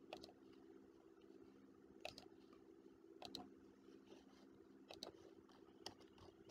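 Near silence: a few faint computer mouse clicks, some in quick pairs, over a low steady hum.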